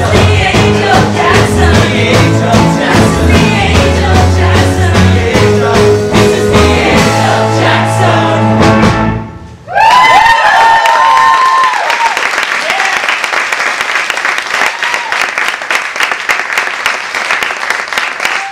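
Live rock band and cast singing, the song stopping about halfway through; then the audience cheers with loud whoops and applauds.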